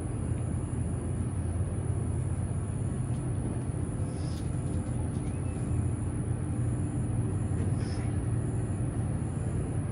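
Steady low outdoor rumble with a faint constant hum in it, and two faint, brief high-pitched sounds about four and eight seconds in.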